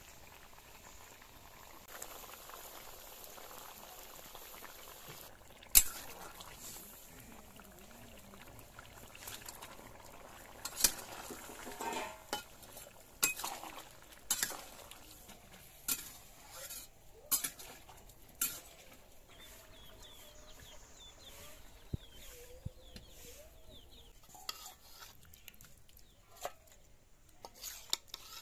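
A curry bubbling at a simmer in a wok, then a spatula stirring and scraping it with a run of sharp clinks against the metal pan. Near the end, a few lighter clinks as a ladle serves the curry into a steel bowl.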